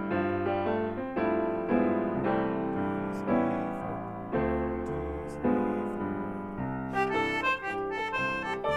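Background piano music: a slow tune of struck notes and chords, each fading after it is played, with higher, brighter notes entering near the end.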